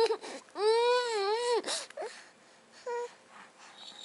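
Baby vocalizing: a long wavering, fussy-sounding call about half a second in, lasting about a second, then two shorter calls, the last near three seconds in.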